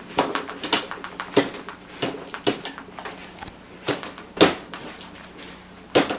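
Senior Pointer mix running in his sleep while dreaming: his paws scuff the carpet and kick the German Shorthaired Pointer beside him in short, uneven strokes about once or twice a second, the loudest a little after four seconds in.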